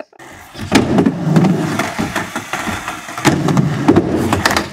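Skateboard wheels rolling across a mini ramp in two runs, with a brief lull between them and a few sharp clacks of the board.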